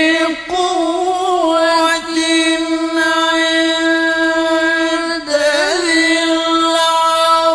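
Male qari chanting Qur'an recitation in the melodic tajwid style, holding long drawn-out notes on one pitch with short ornamental turns about a second in and again just after five seconds.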